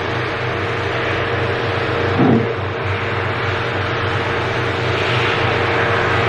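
Steady rushing noise with a low hum underneath and a faint steady tone, like the inside of a car with the engine running and the air blowing. A brief, slightly louder low sound comes about two seconds in.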